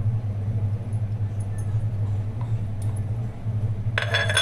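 A pot of rice, chicken and water boiling hard on a gas stove, under a steady low hum. A short metallic ring comes near the end.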